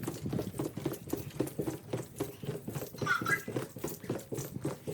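Quick footsteps on a hard floor, about three or four steps a second.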